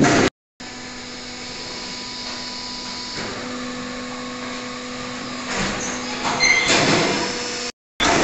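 Brick-making plant machinery running with a steady electric hum under mechanical noise, growing louder and busier after about five seconds. The sound cuts out briefly just after the start and again near the end.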